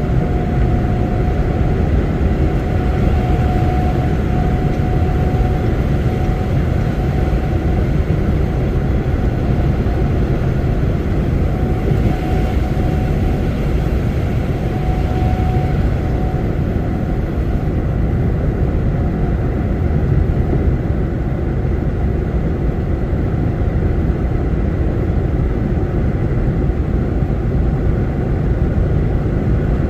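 Steady engine and road noise of a truck driving at speed, unchanging throughout, with a faint steady whine in the first half.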